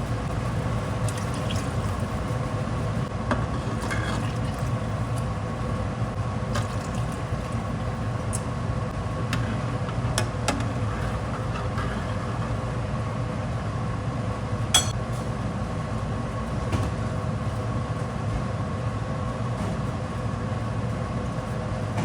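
Liquid being poured into a pan of cooked ground beef, with a few clinks of a measuring cup or dish. A steady mechanical hum runs underneath.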